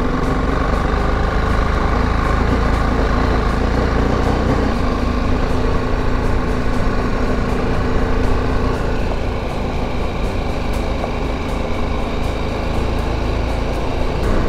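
BMW G310GS motorcycle's single-cylinder engine running steadily as it rides up a gravel road, its pitch shifting about five seconds in.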